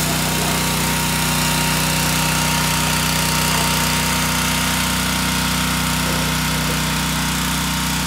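Gas-engine pressure washer running steadily under load, its small engine humming evenly beneath the hiss of the water jet spraying the vehicle's underside.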